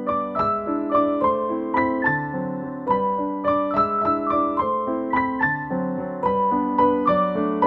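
Background piano music: a melody of struck notes over low chords at an even pace.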